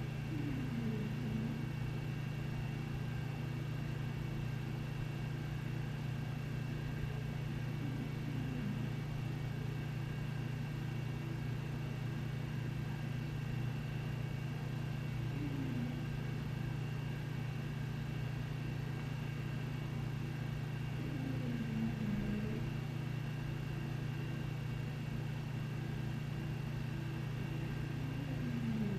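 English bulldog snoring in its sleep: a short falling sound about every six to seven seconds, over a steady low household hum.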